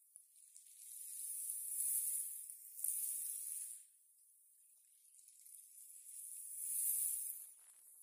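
Small waves washing over a pebble beach: a hissing wash that swells and fades twice, about four seconds apart.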